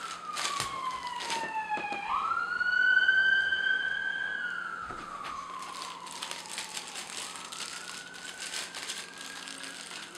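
Emergency-vehicle siren wailing, its pitch gliding slowly down, jumping back up and falling again, loudest about three seconds in, over the crinkling of plastic bubble wrap being handled.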